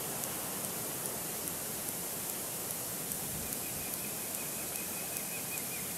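Steady outdoor hiss picked up by a nest-cam microphone, with faint regular high clicks. A thin high trill comes in about three and a half seconds in and stops just before the end.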